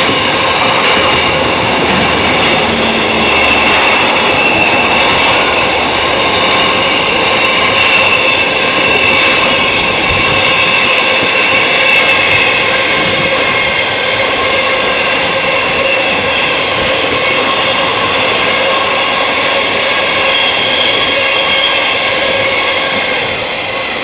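Long container freight train rolling past close by at speed, wagon after wagon: a steady heavy rumble of wheels on rail with several high, steady ringing tones over it. The sound eases near the end as the last wagon passes.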